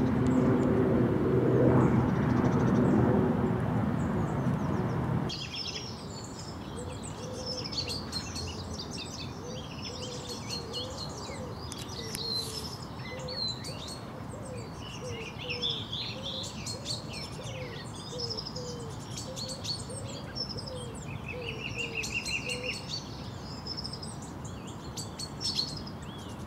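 Songbirds chirping and singing, many short calls and trills overlapping. For the first five seconds a steady low hum with an even pitch sits underneath, then cuts off suddenly.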